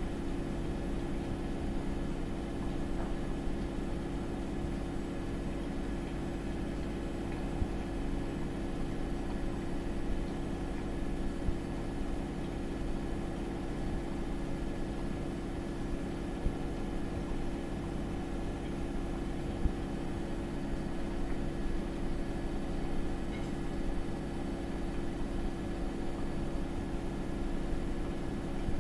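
Samsung WW80R421HFX front-loading washing machine running, a steady motor hum over a low rumble, with a few faint ticks.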